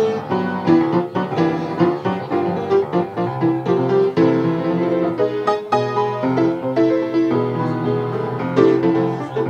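Music led by piano, a continuous run of notes.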